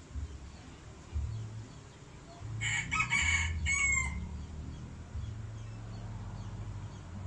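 A rooster crowing once, about two and a half seconds in: one call of about a second and a half that breaks into several parts and falls in pitch at the end.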